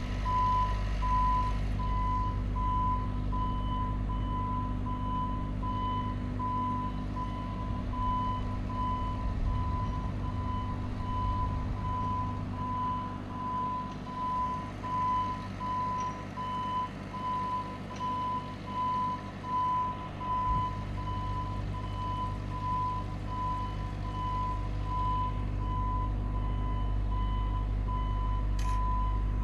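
JLG 150HAX boom lift's motion alarm beeping in an even, repeating train while the boom swings the platform, over the steady low drone of the lift's engine and hydraulics.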